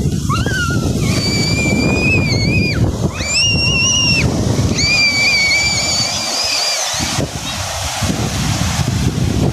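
Ocean surf breaking and washing, with wind buffeting the microphone. Over it come four drawn-out, high-pitched calls, each about a second long, in the first six seconds.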